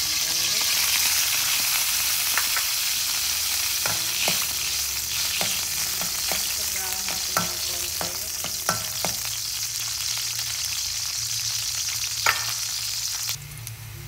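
Chopped garlic sizzling in hot oil in a metal wok, the oil spitting from what seems to be water left in the pan. A metal spoon clinks against the wok several times as the garlic is stirred. The sizzle drops off sharply near the end.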